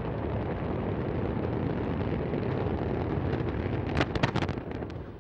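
Deep, steady rumble of an Antares rocket failing and burning seconds after liftoff. About four seconds in, a quick cluster of sharp cracks and bangs sounds as the vehicle explodes at the pad, and then the rumble fades.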